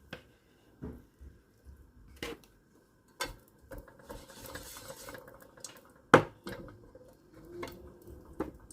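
A spoon knocking and scraping against a cooking pot and container as ghee is spooned into the pot, in a handful of separate clinks with the loudest about six seconds in.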